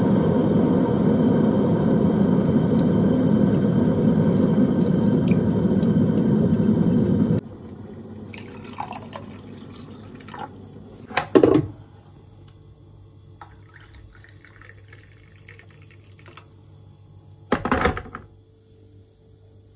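Water from a tap running steadily into a sink, shut off abruptly about seven seconds in. After it, a few short knocks, the loudest a little past halfway and another near the end.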